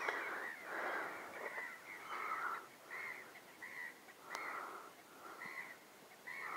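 Gulls calling over a flooded meadow: a string of short, arched, mewing calls, about two a second, from several birds.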